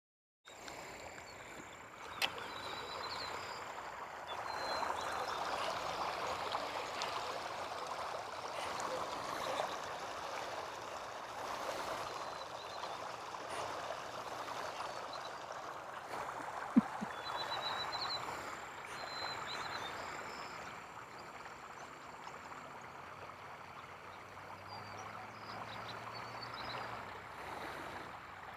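Outdoor pond ambience: a steady rushing noise like running water or wind on the microphone, with a few faint chirps, a small click about two seconds in and a louder sharp click around the middle.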